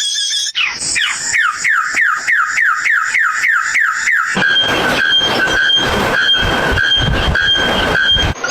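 A series of animal calls: about a second in, a quick run of short notes, each falling sharply in pitch, about three a second, giving way about halfway to a steady, higher note repeated in pulses over a regular beat.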